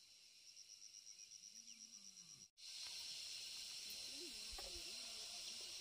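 Insects chirping in a fast, even high trill. It cuts off abruptly a little past halfway, then gives way to a louder, steady high insect hiss.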